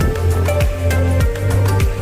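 Background music with a steady beat, deep sustained bass notes and held melody tones.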